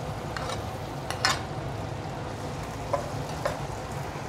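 Sliced onions frying in oil in a wok, a steady sizzle, with a few short clicks of a metal spoon against the plate and pan.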